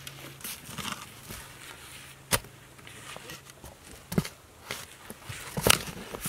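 Shovel digging a post hole in ground that is not yet frozen: the blade scrapes and crunches into the dirt, with three sharp strikes, about two seconds in, just after four seconds and, loudest, near the end.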